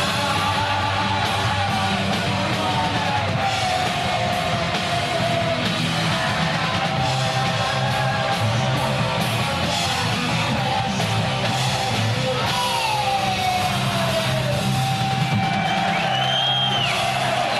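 Loud punk rock music: distorted electric guitars with yelled singing over a steady band.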